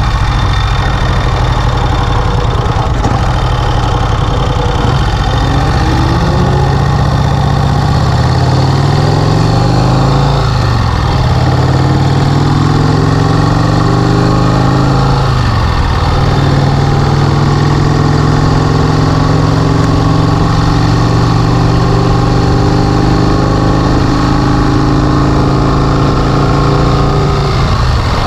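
1951 Vincent Rapide's 998 cc V-twin engine under way, accelerating through the gears. The pitch rises and drops back twice, about ten and fifteen seconds in, at the gear changes, then holds steady at cruising speed.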